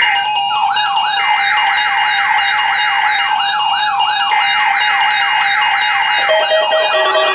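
Weather radio emergency alert: a siren-like alarm sweeping up in pitch about four times a second, over the harsh buzzy data bursts of the EAS/SAME alert header, which break off and start again with pauses of about a second. Steady alert tones come in near the end.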